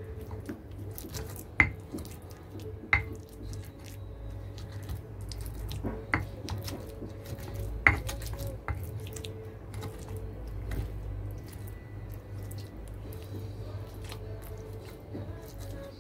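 Stone pestle grinding chilli paste in a stone mortar (ulekan and cobek): a steady scraping and grinding, with four sharp clacks of stone on stone in the first half.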